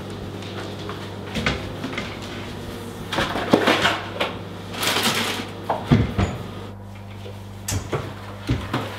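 Kitchen cupboard doors opening and closing and dishes being handled: a scattering of knocks, clinks and a brief scrape over a steady low hum.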